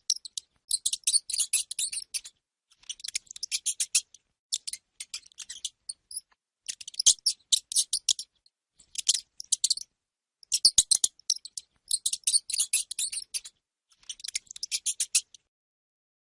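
Hamster squeaking in rapid, high-pitched trains: clusters about a second long with short pauses between them, the last dying away about a second before the end.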